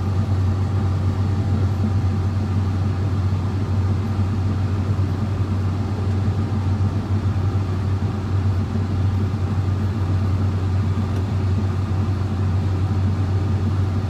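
John Deere X9 combine harvester heard from inside its cab while harvesting: a steady low drone of the engine and threshing machinery under working load, the engine running at about 1900 rpm. The pitch and loudness hold even throughout.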